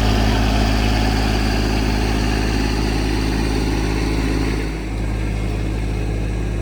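Tractor engine running steadily while working the field, with a brief drop in level about two-thirds of the way through before it settles slightly quieter.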